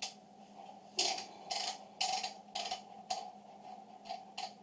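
The magazine cap at the end of a Remington 870 shotgun's forend being unscrewed by hand, giving a run of short clicking strokes about two a second as it turns.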